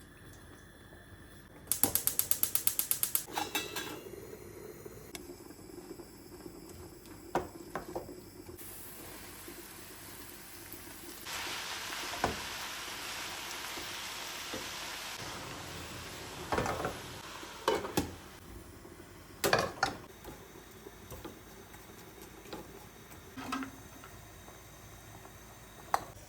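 Kitchen work sounds: a quick run of about ten clicks a second lasting just over a second, then scattered knocks and clatters of pots and utensils, with several seconds of steady hissing in the middle.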